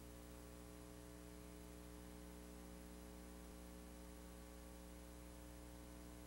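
Faint, steady mains hum with a background hiss, the silent audio track of a VHS tape playing under the opening logo cards.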